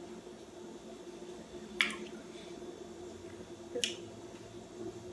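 Two short wet clicks about two seconds apart, mouth sounds of chewing a gummy candy, over a faint steady hum.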